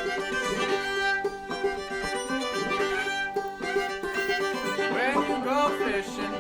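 Fiddle and banjo playing an old-time tune together, with notes sliding upward about five seconds in.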